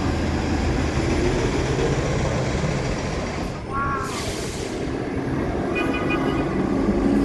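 Dense city street traffic: a steady rumble of idling and slowly moving vehicles. About three and a half seconds in there is a short high squeal, followed at once by a sharp hiss, and near the end a heavy engine sets up a steady low drone.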